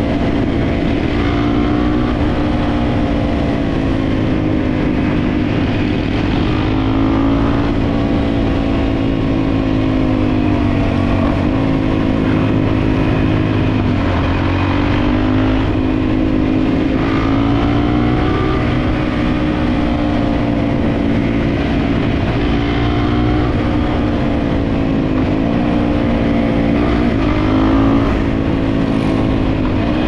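Red supermoto-style dirt bike's engine running under way, its pitch rising and falling repeatedly with the throttle through the bends, with several short dips. A steady low rumble of wind on the microphone runs underneath.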